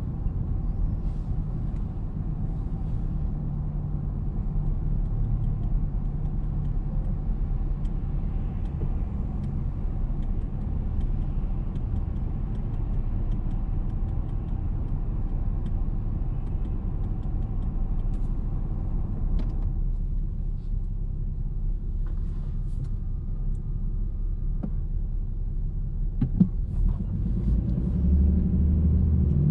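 A car idling at a standstill, heard as a steady low rumble with surrounding street traffic while it waits at a red light. Near the end the rumble grows as the car pulls away.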